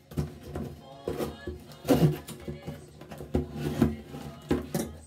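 Background music with plucked guitar notes.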